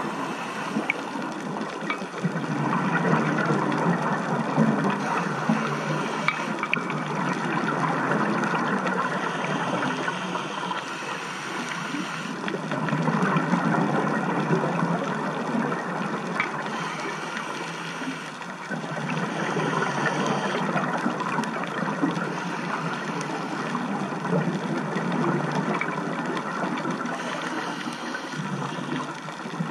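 Scuba regulator breathing underwater: a bubbling rush of exhaled air that swells and fades every four to five seconds.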